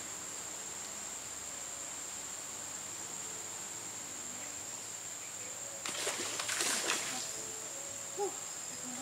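Insects shrilling in one steady, high-pitched drone, with a loud rush of noise lasting about a second and a half some six seconds in and a short low call just after eight seconds.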